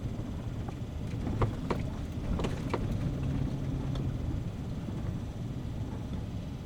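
Toyota Sequoia SUV on the move: a steady low rumble, with a handful of sharp knocks or rattles between about one and a half and three seconds in.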